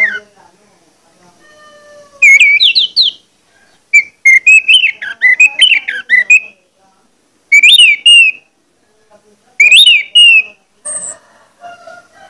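Orange-headed thrush singing in loud bursts: quick whistled phrases that glide up and down, mixed with sharp clicks, with short pauses between them.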